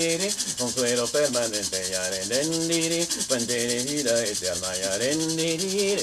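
A leaf-bundle rattle (chakapa) shaken in a fast, steady rhythm, its dry swishing under a man's low voice humming a wavering icaro melody without words.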